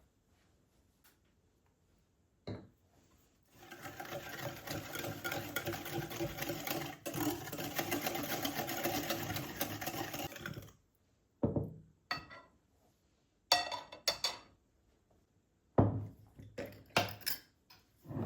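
A small electric motor runs steadily for about seven seconds and then stops, followed by several short knocks and clatters.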